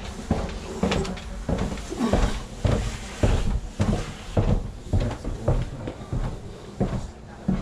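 Footsteps going down a staircase, a steady run of knocking steps about two a second.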